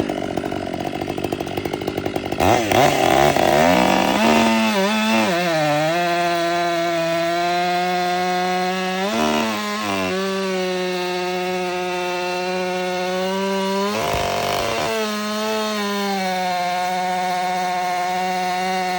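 Ported Stihl 500i chainsaw with a West Coast exhaust and a 25-inch bar cutting through a 20-inch Oregon white oak log. It revs up about two seconds in, then holds a steady high pitch under load in the cut. Twice, around nine and fourteen seconds in, the pitch briefly breaks upward.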